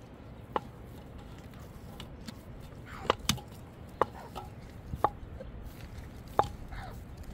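A series of sharp, hard knocks, about six at irregular intervals, a few of them ringing briefly.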